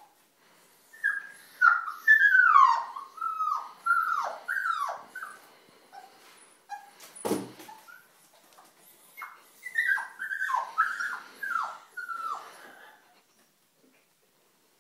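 A puppy crying in short, high, falling whimpers, in two bouts, because its head is stuck in a cardboard tissue box. A single knock sounds about halfway through, between the bouts.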